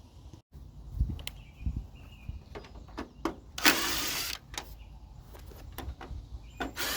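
Cordless driver with a Torx T15 bit backing out screws from a 1993 Chevy S10's plastic grille. The motor runs in two short bursts, one about halfway through and one near the end, with scattered clicks and knocks of the tool and parts being handled.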